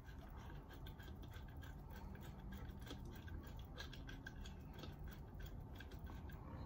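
Faint clicking and scratching of fingers handling a wire and fitting a small plastic wire-number marker onto it, with many light ticks throughout.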